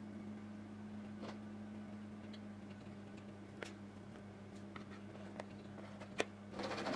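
Wire whisk tapping and scraping against the rim and sides of a plastic mixing bowl as batter is scraped out: a few faint, scattered clicks, the sharpest a little after six seconds in, over a low steady hum. A denser, louder rustle starts just before the end.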